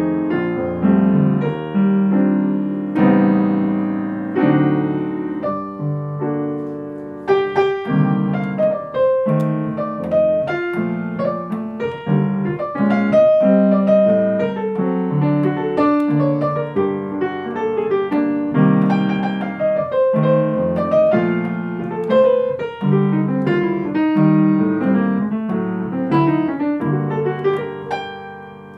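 Grand piano played solo: a slow jazz line in the right hand over held left-hand chords, voice-leading so that the fifth of each chord lands on the downbeat. The last notes die away near the end.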